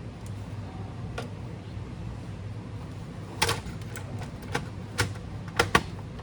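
Sharp clicks and taps of hands handling a laptop's parts, scattered irregularly through the second half, with a close pair near the end, over a steady low hum.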